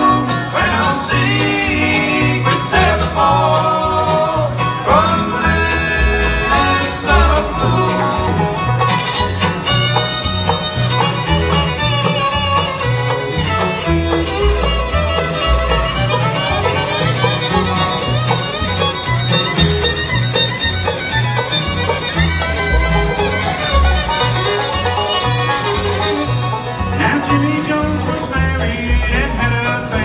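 Bluegrass band playing an instrumental passage: fiddle, five-string banjo, acoustic guitar and upright bass keeping a steady beat.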